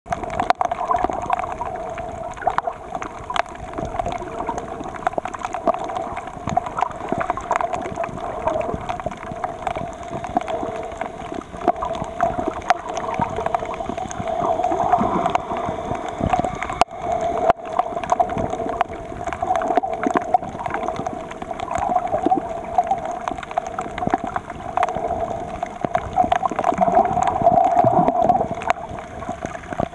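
Underwater ambience over a rocky seabed: a continuous crackle of many small clicks over a steady wash of water noise.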